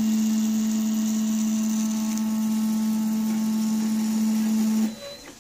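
Stepper motors of a CNC pen gantry driving the carriage in one long, constant-speed move. The result is a loud, steady machine whine that stops abruptly near the end.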